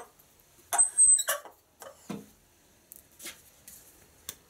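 Hand-held wooden rounder twisted onto the end of a dry maple spindle, cutting with a few rasping strokes. About a second in there is a sharp high squeak, then fainter scrapes and a tap.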